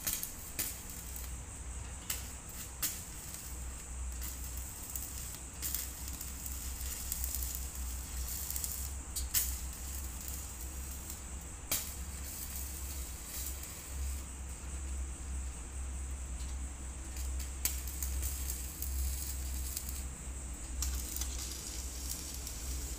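Electric arc welding on a metal barrier arm: a steady crackling sizzle from the arc, broken by sharp pops, over a low hum.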